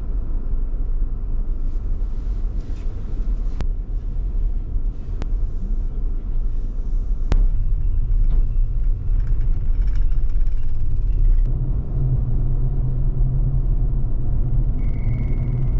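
Steady low rumble of a car on the road, with three sharp clicks in the first half and a short high beep near the end.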